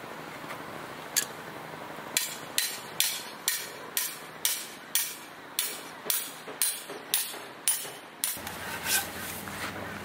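Snow Peak copper-head peg hammer driving a metal peg into the ground: one strike, then a steady run of about a dozen sharp metal-on-metal blows, roughly two a second.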